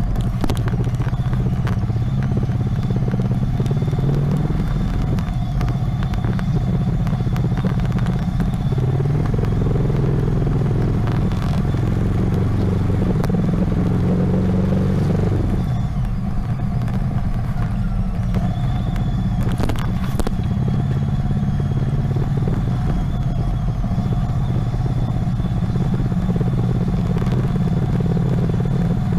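2007 Yamaha Vixion's 150 cc single-cylinder engine running at low speed in the lower gears, the revs rising a little about a third of the way in and easing off again. A few short clicks sound over it.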